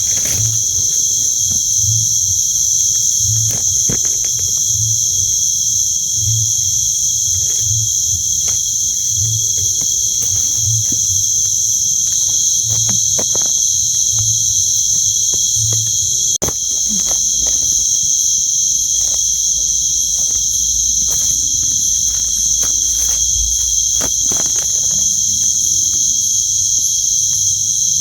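Night insect chorus of crickets: a steady, loud, high-pitched trilling drone. A low, regular pulse sounds about once a second through the first half, with scattered soft rustles and clicks.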